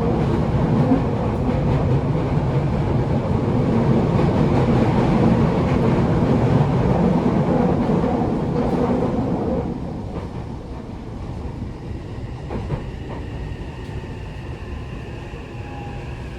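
Cabin running noise of a Toei 6500 series train: a steady rumble of wheels on rail with some clickety-clack. About ten seconds in it drops noticeably quieter. Faint high whining tones then appear, from the Mitsubishi hybrid SiC VVVF inverter and induction motors, and slowly fall in pitch as the train slows.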